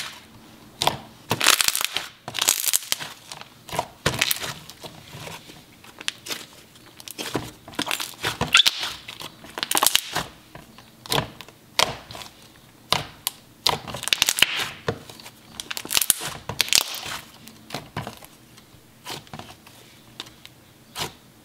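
Thick creamy slime kneaded and pressed by hand, giving irregular crackling squishes and bubble pops, a burst every second or so.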